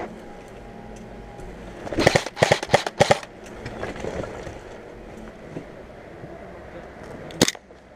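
Airsoft replica guns firing: a quick string of about six sharp shots two to three seconds in, then a single sharp crack near the end.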